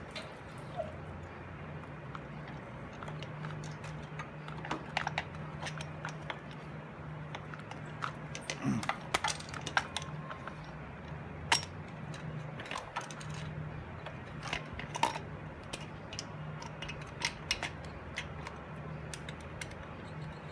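Scattered light metallic clicks and clinks as Harley-Davidson Sportster rocker box parts are handled and set in place, over a steady low hum.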